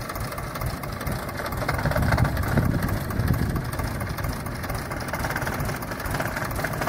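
Farm tractor's diesel engine idling steadily, running a little louder for a second or so about two seconds in.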